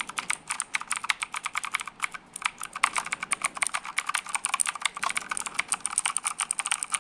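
Rapid, continuous typing on the AVF MXR9 mechanical keyboard, its clicky switches, similar to Cherry MX Blues, giving crisp clacks at several keystrokes a second.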